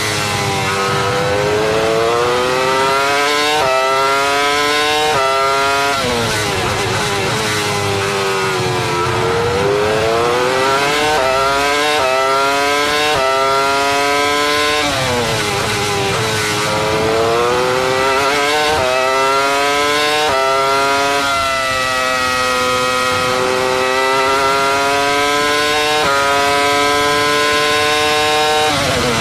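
Mercedes V10 Formula 1 engine in a 2004 McLaren, heard onboard at racing speed. The revs climb through quick upshifts, each marked by a sudden drop in pitch, and fall steeply on braking with downshifts into corners, several times over. Near the end the engine holds a fairly steady high note for several seconds.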